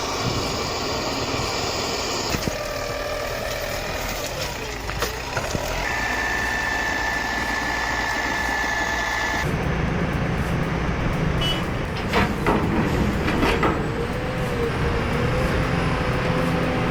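Heavy logging-machine engines running across several short clips cut together. A steady high whine or beep sounds from about six to nine and a half seconds in.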